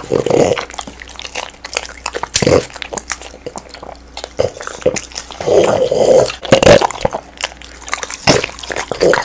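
Two French bulldogs chewing watermelon close to a microphone: wet crunching, smacking jaws and slurping in irregular bites, louder and busier about five and a half to seven seconds in.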